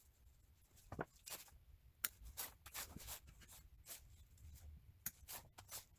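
Irregular light clicks and short rustles of hands working the end of a new SJOOW 14/3 rubber power cord, preparing it for wiring.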